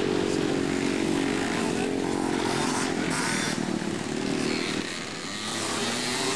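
Racing three-wheeler (ATC) engines running hard on the motocross track, a steady buzzing engine note that drops off briefly about five seconds in and comes back near the end.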